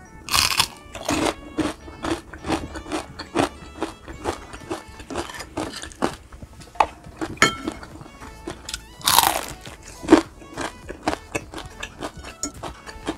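Close-miked crunching and chewing of crispy fried food, a steady run of crackly crunches, with loud crisp bites about half a second in and again about nine seconds in. Background music plays under it.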